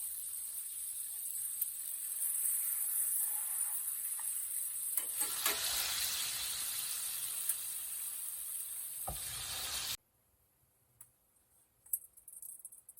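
Food sizzling in a frying pan, a steady hiss that swells louder for a few seconds midway, then cuts off abruptly; a few faint clinks follow.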